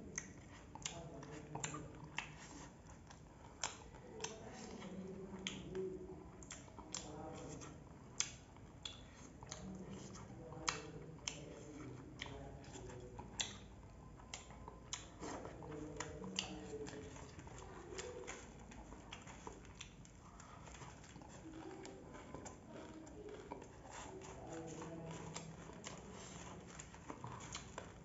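Close eating sounds of puffed rice being eaten by hand: irregular sharp crunches and clicks, several a second, from chewing the crisp rice and fingers working in steel dishes. Faint voices murmur underneath.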